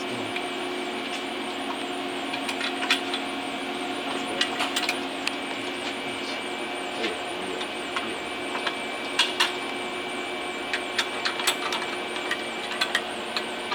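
Steady hum of running workshop equipment with several fixed tones, under scattered light clicks and taps of metal parts being handled on a welding jig, more frequent in the second half.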